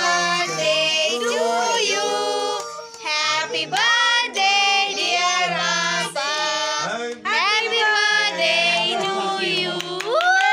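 A birthday song sung with a child's voice to the fore, in held notes that change every fraction of a second.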